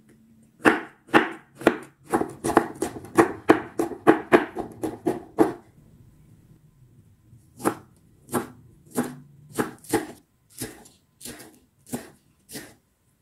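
Kitchen knife chopping through chillies on a wooden cutting board, a quick run of sharp cuts about three a second. After a short pause, a slower series of cuts, about two a second, through a leek stalk.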